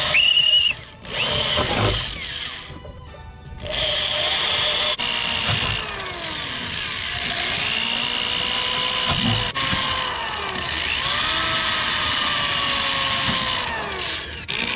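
Electric drill boring a series of holes through a plastic panel. The motor's whine rises and falls in pitch as the trigger is worked and the bit bites, with brief letups between holes about a second in and again around 2 to 4 seconds.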